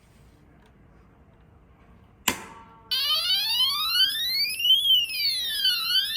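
A sharp click, then about three seconds in an electronic fire-alarm sounder starts up, its loud tone sweeping up and down in a wail.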